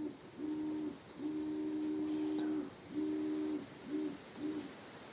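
LowRider CNC's stepper motors whining during jog moves, starting and stopping six times, with runs from about half a second to a second and a half and the last two brief. The stop-start motion is, the operator thinks, due to weak Wi-Fi.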